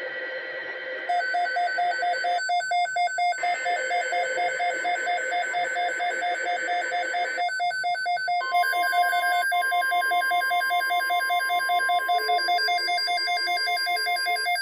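Several NOAA weather radio receivers alerting for a tornado watch. Fast, evenly pulsed alarm beeps over radio hiss are joined about eight seconds in by the steady single-pitch NOAA warning alert tone.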